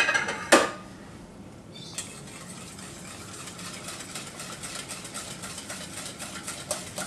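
A pan clattering twice in a stainless-steel sink. This is followed by a whisk ticking rapidly and steadily against a metal saucepan as milk is whisked into a roux for a béchamel sauce.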